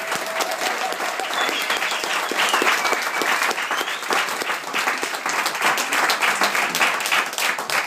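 An audience of about seventy applauding, dense steady clapping that begins to thin into separate claps near the end.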